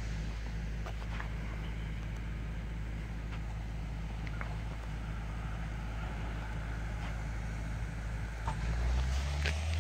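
Steady low hum of construction machinery engines running at the site, with a few faint clicks; the low rumble grows louder near the end.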